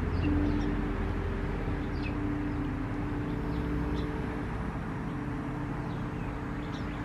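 A steady low mechanical hum with an even rumble, like distant traffic or an engine running, and small birds chirping faintly now and then.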